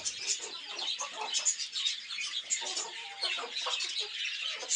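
A flock of chickens feeding on chopped green fodder: scattered short clucks over a dense, continuous patter of quick pecking ticks.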